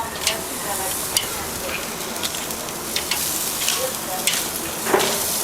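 Pre-marinated lamb pieces sizzling as they are laid on a hot charcoal grill, a steady hiss scattered with crackles, pops and a few sharp clicks.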